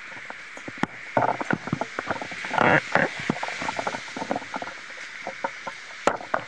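Irregular clicking and rattling of objects moved by heavy wind, with a few louder clatters, over a steady hiss.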